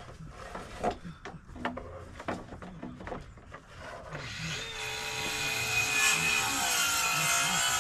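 Scattered wooden knocks and taps, then about four seconds in a reciprocating saw starts up and runs steadily, cutting through deck lumber.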